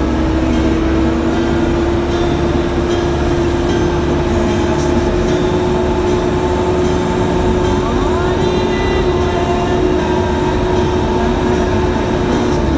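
Caterpillar 420D backhoe loader's diesel engine running steadily under load, with a steady tone that rises slightly in pitch at the start and drops near the end as the revs ease off.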